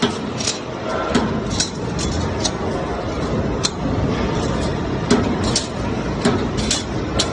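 CNC flat bar bending, punching and cutting machine running: a steady mechanical noise with frequent short metallic clanks and knocks, a few of them louder.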